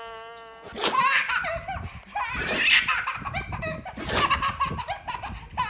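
A baby laughing hard in repeated bursts of belly laughter. A held musical note cuts off just before the laughter starts, under a second in.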